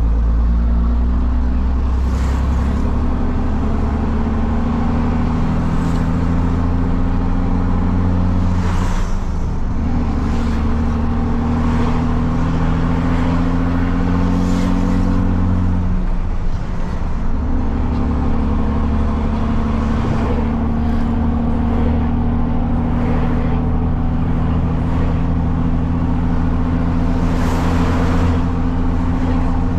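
Truck engine with a straight-through, unmuffled exhaust running under way, heard from the cab. Its note drops briefly and picks up again twice, about nine and sixteen seconds in, as gears are changed.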